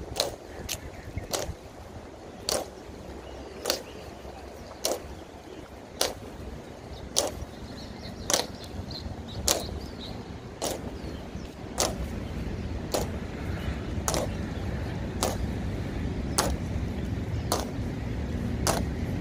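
Honour guards' hard-soled boots striking the pavement in a slow, even ceremonial marching step, one sharp click a little more than once a second, over a low steady rumble.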